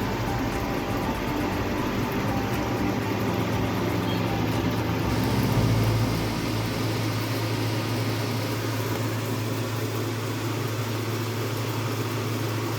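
Small electric motors of a homemade air cooler, its fan and water pump, running with a steady hum. The sound shifts slightly about five seconds in.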